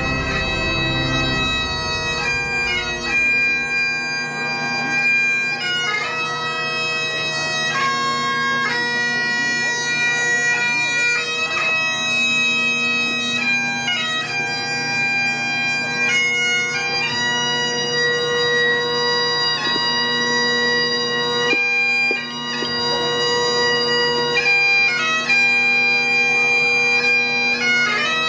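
Bagpipe music: a slow tune of held notes over steady, unchanging drones.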